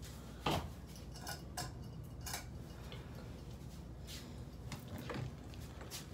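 Scattered light clicks and clatter of small objects being handled, about seven in six seconds, the loudest about half a second in, over a faint steady low hum.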